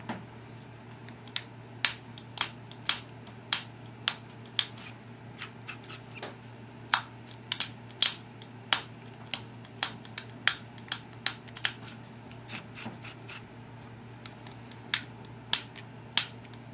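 Obsidian being pressure-flaked with a copper-tipped pressure flaker: a run of sharp little clicks as flakes snap off the edge, about two a second with a brief pause near the end, straightening an uneven edge and building up a bevel.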